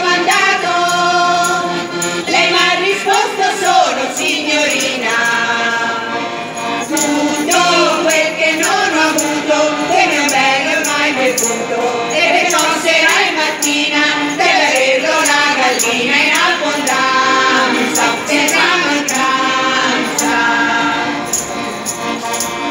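A folk choir singing a trescone, a traditional Tuscan dance-song, with hand tambourines jingling along to the beat.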